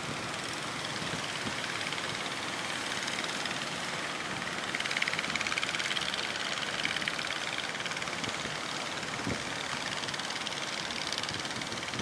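Engines of motorised outrigger fishing boats running as the boats push out through breaking surf, over a steady hiss of waves. The sound swells a little about five seconds in.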